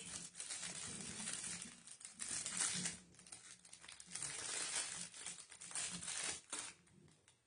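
Crinkling and rustling of a white gun-cleaning cloth being handled and folded in the hands, in quick uneven swells that stop shortly before the end.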